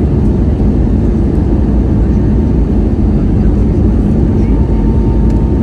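Airbus A321neo jet engines and airflow heard from inside the passenger cabin: a loud, steady, deep rushing noise with a faint steady hum running through it, typical of the takeoff and climb.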